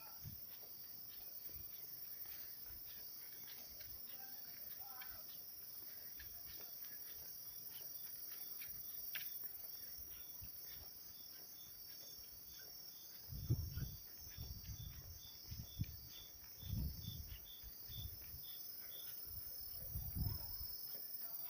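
Night insects chirping: a steady high trill with a regular run of short, evenly spaced chirps. In the second half come low thumps, about one a second.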